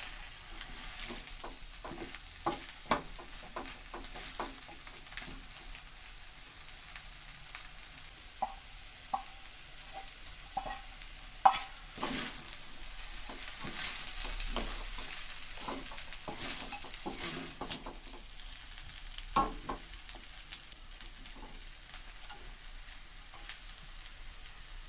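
Fried noodles and vegetables sizzling in a steel wok while a spatula stirs and tosses them, with frequent scrapes and knocks of the spatula against the wok.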